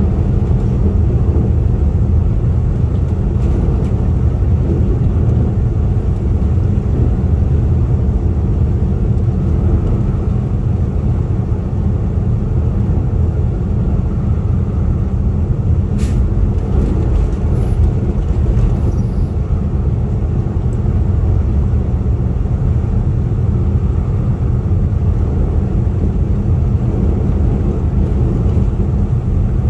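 Steady low rumble of a vehicle driving at road speed, heard from inside the cabin: tyre and engine noise with no change in pace. A single sharp click comes about halfway through.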